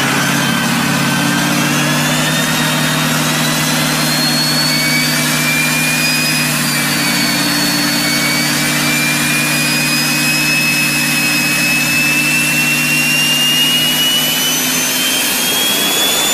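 Diesel pickup truck engine running hard under load on a chassis dyno: a loud, steady engine noise with a high turbo whistle that slowly rises in pitch.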